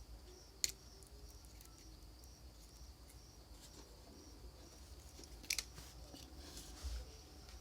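Two sharp clicks from small tools handling phone parts, one about half a second in and a louder one past five seconds, with some rustling near the end. Under them runs the steady pulsing chirp of crickets, a few pulses a second.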